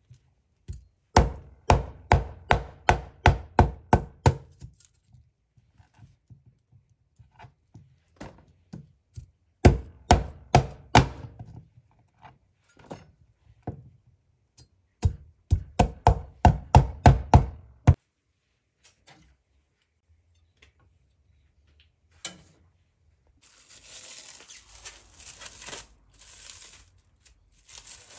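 A cleaver chopping through raw corn cobs on a wooden cutting board: three runs of quick strikes, about three or four a second, with pauses between. Near the end there is a soft, irregular rustling.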